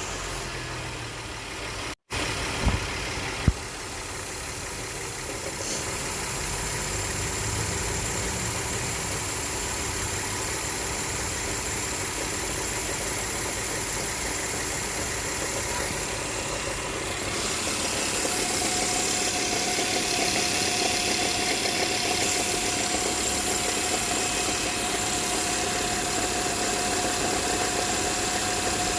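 Volkswagen Touareg (NF) 3.6 FSI VR6 engine running at idle, with the knocking from under the hood that is the subject of the recording. Two sharp clicks come about three seconds in, and about two-thirds of the way through the sound gets a little louder and a steady high whine joins it.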